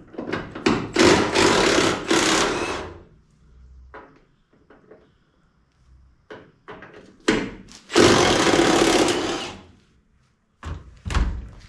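A power tool runs in two bursts of about two seconds each, with scattered clicks and knocks between them, while bolts are worked loose on a truck's front fender.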